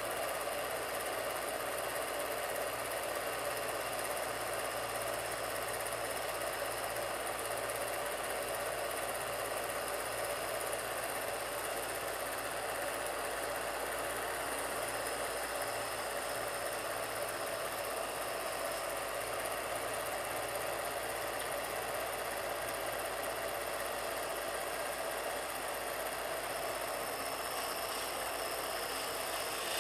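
Film projector running steadily: a continuous mechanical whirr with a low hum underneath.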